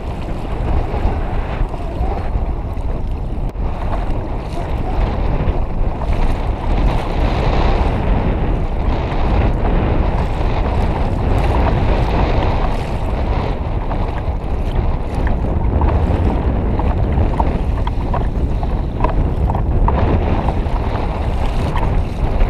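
Wind buffeting the microphone over choppy sea water slapping and lapping at a kayak's hull: a steady, loud rush with no break.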